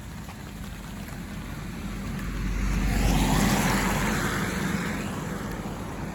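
A vehicle passing on a wet road: the tyre hiss and engine rumble swell to a peak about three seconds in and then fade away.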